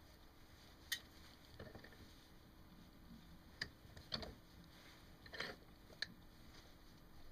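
Faint, scattered clicks and short rustles of hands handling a soldering iron and wire at a bench vise, about half a dozen in all, the sharpest about a second in.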